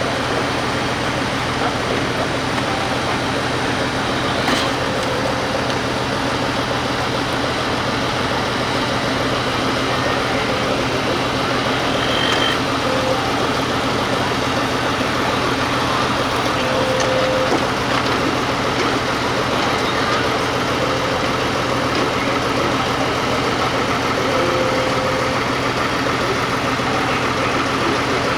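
Fire engine's diesel engine running steadily, with no siren sounding.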